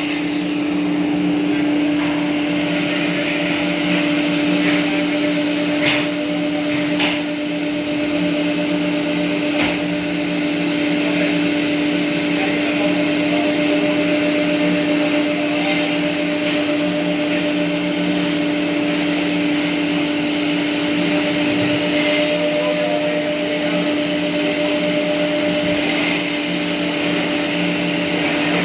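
Woodworking CNC router with electric spindles running: a steady, even whine under a constant hiss, with a few faint clicks.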